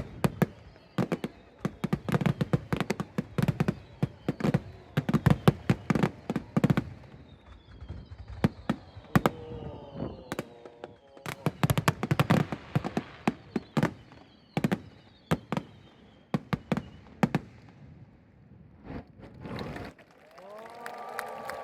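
Aerial fireworks display: a dense, rapid run of booming and cracking shell bursts, many overlapping, that thins out to a few scattered bangs in the last few seconds, with voices of the crowd coming in near the end.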